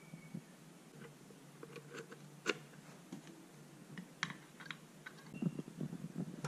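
Sporadic light clicks and taps from handling a Tesla transformer setup and its cables, with a few soft knocks near the end, over a faint steady low hum.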